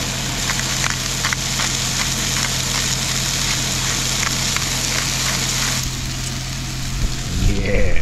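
Vegetables sizzling in a pan, a steady hiss with scattered small crackles and pops. The hiss drops away about six seconds in.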